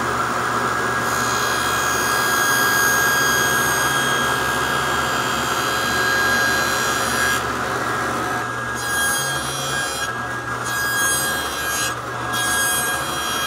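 Table saw running while its blade cuts a rabbet across the end of a plywood drawer front fed upright against the fence. Under the steady hum and whine of the saw, the cutting noise swells about a second in and turns uneven over the second half as the cut nears its end.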